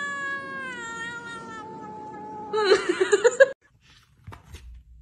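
A domestic cat gives one long drawn-out yowl that slowly falls in pitch, then breaks into a louder, wavering wail that cuts off suddenly about three and a half seconds in. A few faint taps follow.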